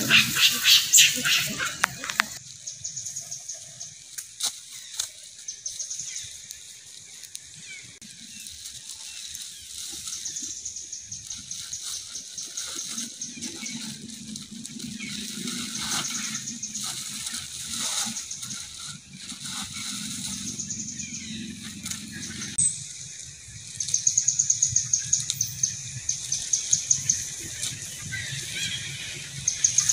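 Outdoor ambience with rapid, high-pitched chirping trills that come and go every few seconds. It opens with a monkey's shrill squeals in the first two seconds.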